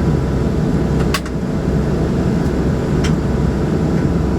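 Steady cabin drone of the Embraer 120 Brasilia's twin turboprop engines running at power, heavy and low, with two faint clicks about a second in and near three seconds in.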